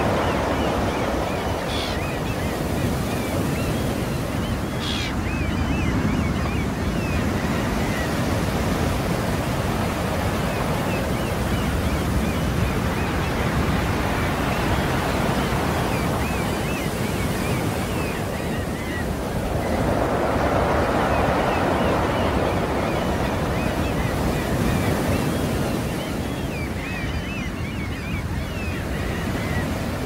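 Sea surf washing in continuously, swelling and easing, with one fuller swell about twenty seconds in.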